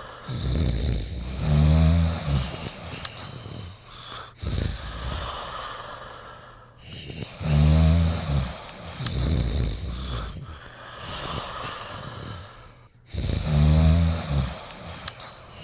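Sleeping pets snoring: three loud, low snores about six seconds apart, with softer breathing between them.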